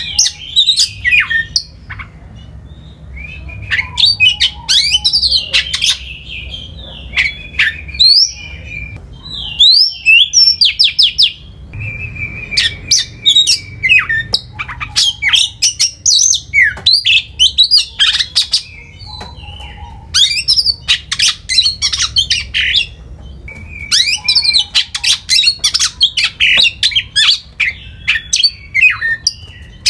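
Songbird song in repeated phrases every few seconds: each opens with a held whistle-like note, then runs into rapid chirps and sweeping trills. A faint low hum sits underneath.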